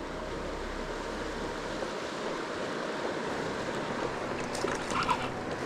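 Fast-flowing river water rushing steadily, with a few faint clicks near the end.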